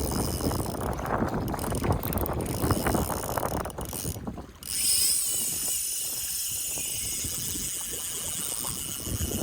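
Wind buffeting the microphone, a rough rumbling hiss that eases briefly about halfway and then runs on more evenly.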